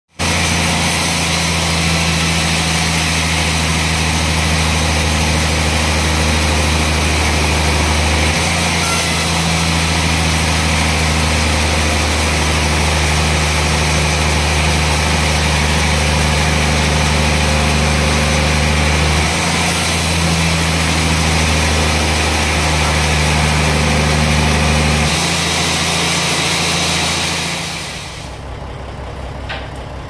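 Large band sawmill running, its blade sawing lengthwise through a big teak log: a loud, steady sawing hiss over the machine's low drone. The sound falls away sharply about two seconds before the end.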